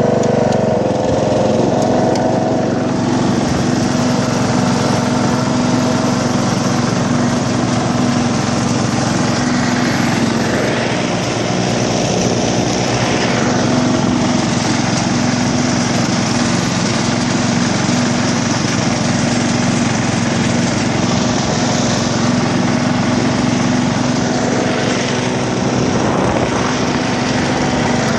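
Lawnflite 604 ride-on mower's engine running steadily.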